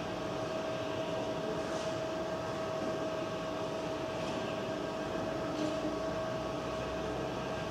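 Tubular motor of a very large motorised roller blind running steadily as the blind rolls up, a constant hum with one clear steady tone.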